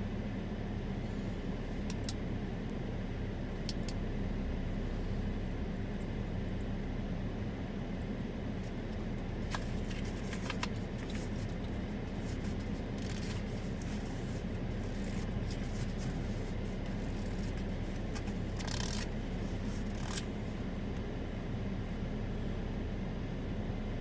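Strong tropical-storm wind gusting as a steady low rumble with a faint hum under it, and scattered light ticks and rustles between about 9 and 21 seconds in.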